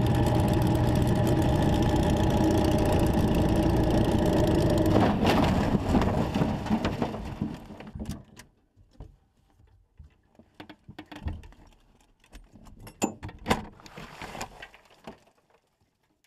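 Single-engine light plane's piston engine running steadily at high power. About five seconds in comes a sudden crash as the plane hits a tree, and the engine sound dies away over the next few seconds. After that, scattered small cracks and clicks of branches and debris.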